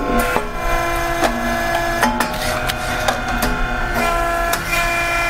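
SYP4506 puffed rice-cake popping machine running: a steady mechanical hum made of several overlapping tones, with sharp knocks at irregular intervals as its heated molds work.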